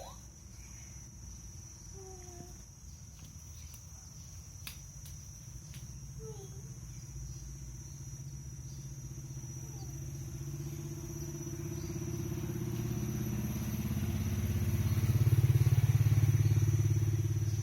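Cat purring: a low, pulsing rumble that grows louder over the second half and eases slightly near the end, with a few faint short chirps early on.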